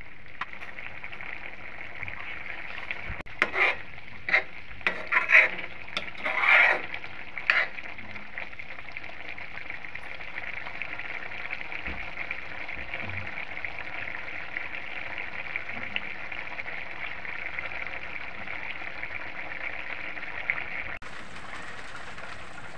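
Okra in a watery gravy simmering and sizzling steadily in a metal kadhai. A metal ladle stirs, scraping and knocking against the pan several times between about three and eight seconds in.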